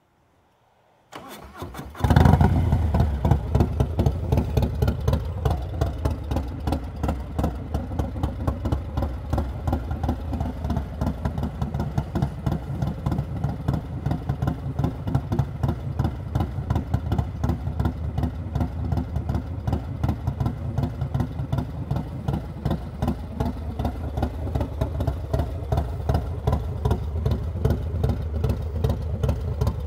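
Stage 2 Harley-Davidson Milwaukee-Eight 117 V-twin engine on a Low Rider S being started: the starter turns it over about a second in, it catches about two seconds in with a loud first flare of revs, then settles into an idle with an evenly pulsing beat.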